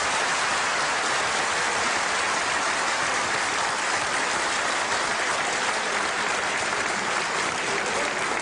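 Large audience applauding, a loud, steady, sustained ovation.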